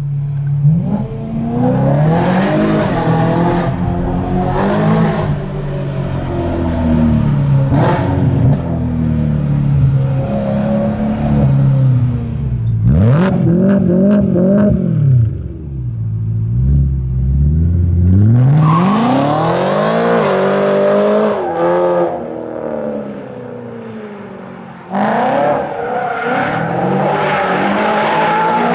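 BMW M3 E92's V8 through a Fabspeed Maxflo exhaust with X-pipe cat bypass and high-flow sport cats, revving up and falling back several times. It makes one long climb to high revs about two-thirds in, then, after a dip, comes in suddenly and stays at high revs near the end.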